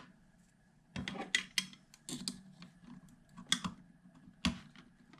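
Irregular small clicks and taps of a panel-mount switch being worked loose, its squeeze tabs pressed so it can be pushed out through the power supply's front panel. The two sharpest clicks come about three and a half and four and a half seconds in.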